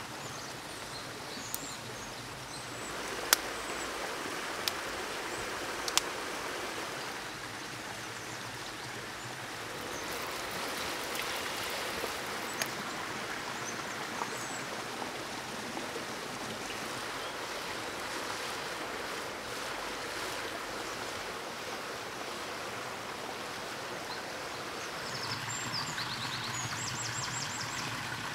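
Steady rushing of a forest stream, with a few sharp clicks in the first six seconds and short high bird chirps near the end.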